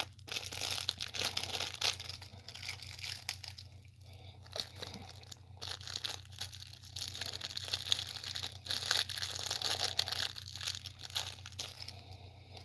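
Foil candy wrapper being crinkled and peeled off a peanut butter cup by hand: a continuous run of small crackles and rustles that comes and goes, over a steady low hum.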